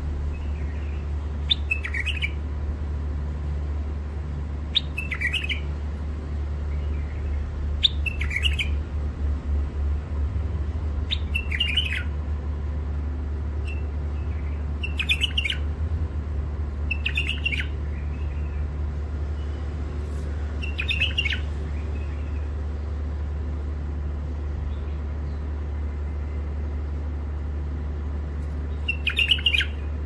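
A caged white-eared bulbul gives short, sharp chirping phrases every few seconds, about eight in all, with a longer pause near the end. A steady low hum sits underneath.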